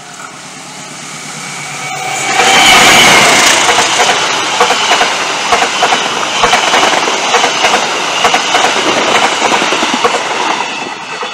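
Serayu passenger train passing close by, its diesel locomotive swelling up to a peak about two and a half seconds in. The coaches then roll past with a rapid clickety-clack of wheels over the rail joints and junction points, easing off near the end.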